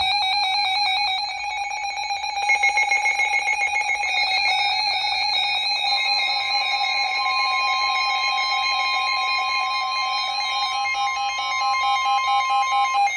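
Several NOAA weather radios sounding their alert alarms together for a severe thunderstorm warning: overlapping steady and rapidly pulsing electronic beeps. About six seconds in, the steady 1050 Hz NOAA Weather Radio warning tone joins, and everything cuts off just before the end.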